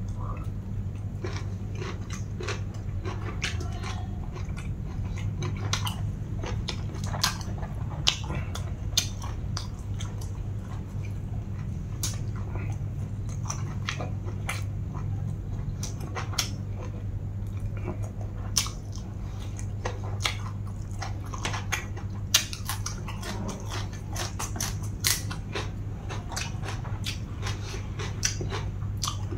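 Close-miked chewing and crunching of pounded long-bean salad and raw vegetable stems, with irregular crisp crunches throughout. A steady low hum runs underneath.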